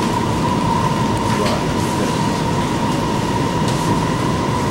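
An Alstom Movia R151 metro car heard from inside while running: a steady rumble of wheels on rail under a constant high whine, with a few light clicks.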